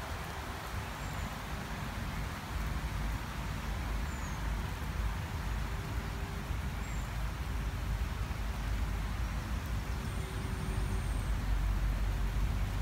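Steady low outdoor rumble, with a few faint, short, high bird chirps.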